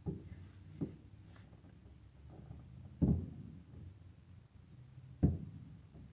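Fireworks shells bursting at a distance: four low booms with short rumbling tails, the last two loudest, about three and five seconds in.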